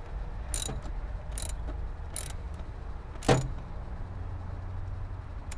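A long-shafted hand tool working on the intake pipe fitting of a Subaru engine, making three light metal clicks under a second apart, then a louder clunk about three seconds in, over a steady low rumble.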